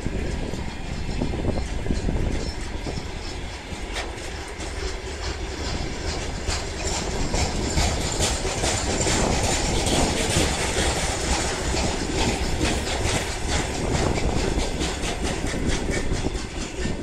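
Heavy freight train of covered hopper wagons rolling past, steel wheels clicking and clattering over rail joints, with the clicks coming thicker from about six seconds in.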